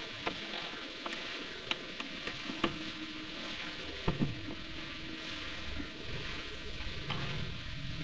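Bent hairpin wires scraping and clicking in a door lock's keyhole as the lock is picked: scattered sharp little clicks over a steady hiss, the loudest two close together about four seconds in.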